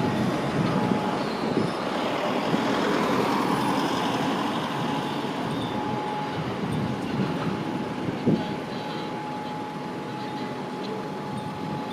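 Street traffic noise: a steady rumble with a vehicle passing about three to four seconds in, and a thin steady tone running underneath. A short sharp knock comes about eight seconds in.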